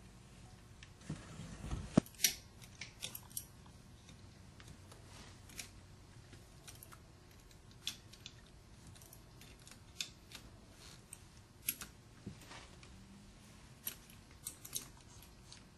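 Scattered light metallic clicks and ticks of a hand tool working the nuts on the electric motor's long through-bolts as the case is tightened together, with a louder knock about two seconds in.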